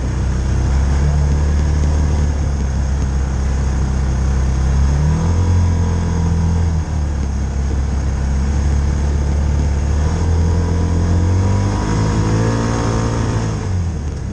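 Side-by-side UTV engine running under way, heard from inside the cab. Its pitch steps up about five seconds in and drops back a couple of seconds later, then rises and falls again near the end.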